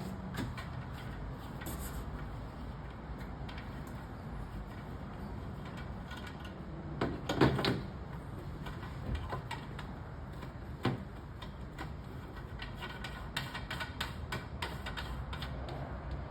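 Small clicks and knocks of PVC handrail pipes and fittings being handled and fitted, with a louder clatter about seven seconds in and a sharp knock about eleven seconds in.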